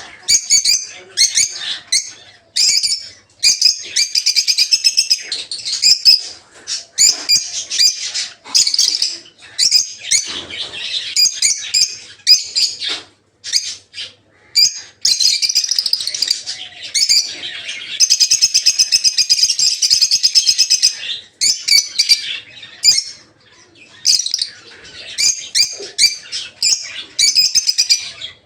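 A flock of peach-faced (rosy-faced) lovebirds chattering in quick runs of shrill chirps, with a brief lull a little before halfway and a long unbroken stretch of chatter after it.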